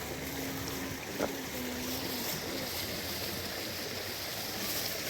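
Steady heavy rain: an even hiss of falling water, with one sharp tap a little over a second in and a faint low hum through the first half.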